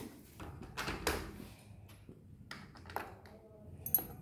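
A few light metal taps and clinks as a stainless-steel idli stand is set down into a steamer pot, the sharpest knock, with a short metallic ring, near the end.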